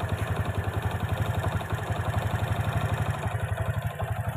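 Honda Karisma 125's air-cooled single-cylinder four-stroke engine idling steadily, its worn cam chain and tensioner replaced; it runs smoothly, without the cam-chain rattle.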